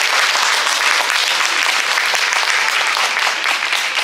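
Audience applauding: many hands clapping in a dense, steady patter that begins to ease off near the end.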